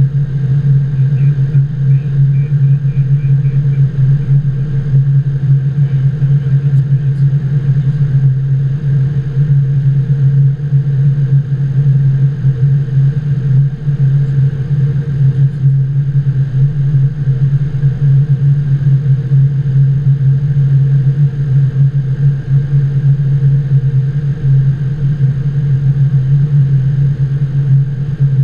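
Steady cockpit drone of a Boeing 777-200 descending on approach: airflow and engine noise heard inside the flight deck, an unbroken deep hum with a few fainter steady tones above it.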